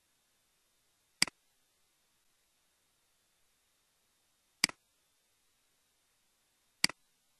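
Three computer mouse-button clicks, each a quick press-and-release double click sound, spaced a few seconds apart over near silence.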